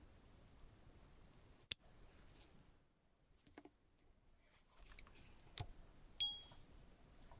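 Quiet handling of an Apple Watch and its leather link band: a sharp click a little under two seconds in, soft rustling, then another sharp click as the magnetic charger meets the back of the watch. Right after it comes a short, high, fading chime as the watch starts charging.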